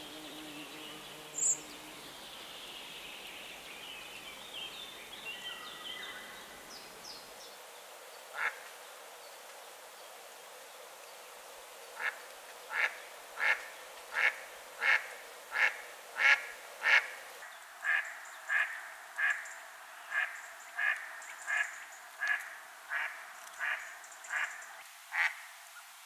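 Female mallard quacking, a loud, even run of single quacks about one and a half a second, starting about halfway through after one lone quack a few seconds earlier.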